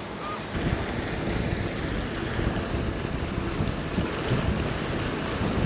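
Wind buffeting the microphone on a small boat on the sea, with the rush of water. It picks up about half a second in and stays rough and gusty.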